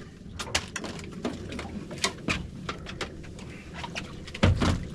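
Irregular sharp clicks and taps, with one heavier knock near the end: fish and fishing tackle being handled on a small boat's deck.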